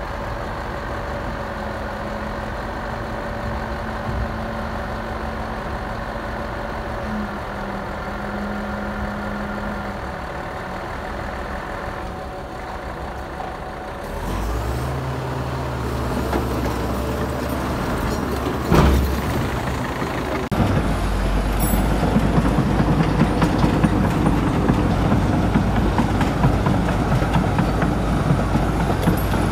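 Heavy diesel earthmoving machinery running steadily, its engine hum changing abruptly about halfway through and again about two-thirds of the way in, with one sharp clank shortly before the second change.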